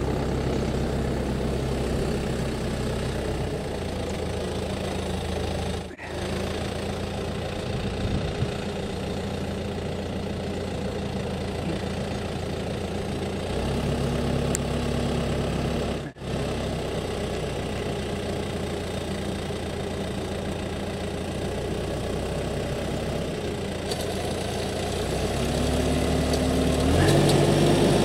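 Tractor diesel engine running steadily while it drives a front-mounted hydraulic olive-tree skirt trimmer. The engine note rises a step and grows louder near the end. The sound breaks off briefly twice.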